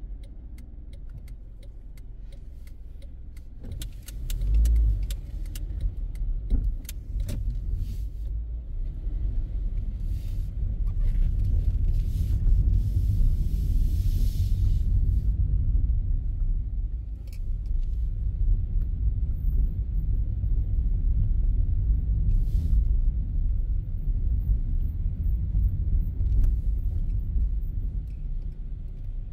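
Car driving slowly, heard from inside the cabin: a steady low rumble of engine and tyres. Small scattered clicks and rattles sound in the first several seconds, and the rumble grows louder after about ten seconds.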